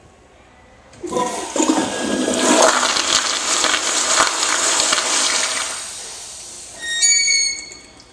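American Standard Madera flushometer toilet flushing: a sudden loud rush of water about a second in, running several seconds and tapering off. Near the end comes a brief high whistle.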